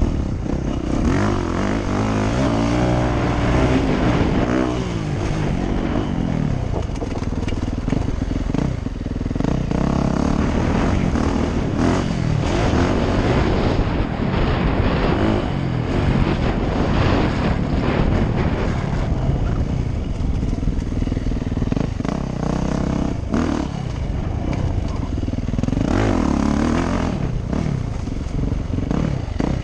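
Yamaha YZ450F dirt bike's 450 cc four-stroke single-cylinder engine being ridden hard, revving up and falling off over and over as the throttle is opened and closed through the turns and rises.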